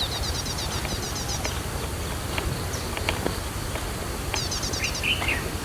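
Small bird giving two quick trills of rapid high, falling chirps, one at the start and one near the end, with a single lower call just before the end, over a steady low background rumble.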